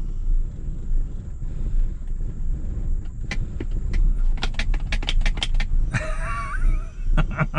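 BMW E39 530i's M54 inline-six idling roughly, a low rumble that pulses unevenly; it runs rough with no stored codes, which the mechanic takes for a failing fuel pump. A run of sharp clicks comes midway, and a short warbling tone near the end.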